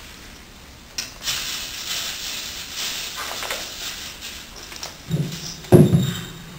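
Microphone handling noise: a sharp click, a few seconds of rustling, then heavy bumps about five to six seconds in as a table microphone on a stand is grabbed and pulled into position.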